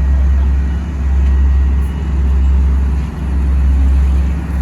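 Asphalt paver's diesel engine running close by, a heavy low rumble that swells and dips about once a second.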